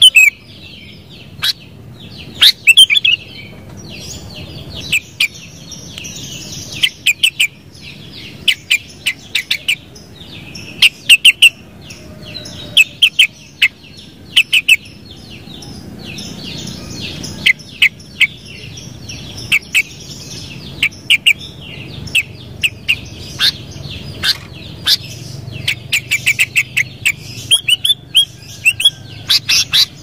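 Sooty-headed bulbul calling: short, sharp chirps given in quick clusters of several notes, again and again, over a faint low background hum.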